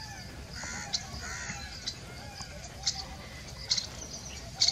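Wild birds calling, with harsh caw-like calls and short, sharp high chips recurring about every second, over a low background rumble.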